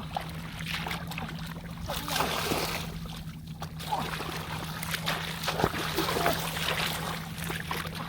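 Muddy water sloshing and splashing in irregular bursts as hands dig and grope through rice-field mud, over a steady low hum.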